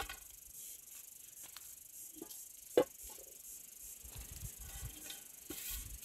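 A few short knocks and clinks of metal cookware, the loudest nearly three seconds in, as a metal cake pan is set down into a pot of water.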